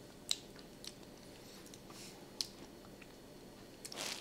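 Faint mouth sounds of someone tasting freshly made mayonnaise: a few small lip-smacks and clicks, with a louder breathy rustle near the end.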